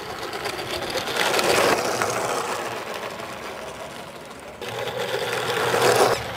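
Newqida G-scale battery-powered model steam locomotive running on its garden track, its electric motor and gears whirring steadily. It gets louder near the end as it passes close by.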